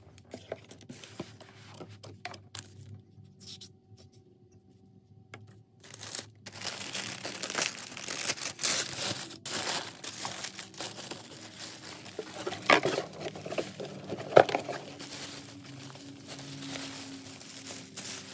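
Tissue paper being handled: light sparse rustles at first, then from about six seconds in, steady crinkling as the paper lining of a cardboard gift box is folded back. Two sharper, louder crackles come around the middle.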